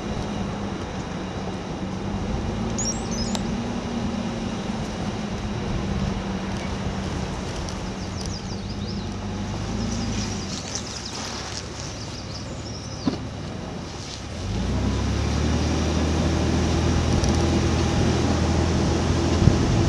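An engine running steadily. About fourteen seconds in it gets louder and deeper.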